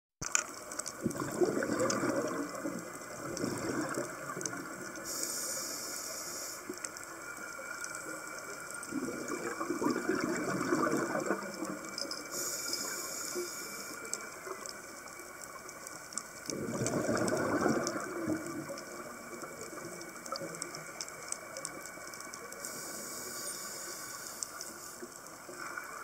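Scuba diver breathing underwater through a regulator: three bursts of exhaled bubbles several seconds apart, with a higher hiss of inhalation between them.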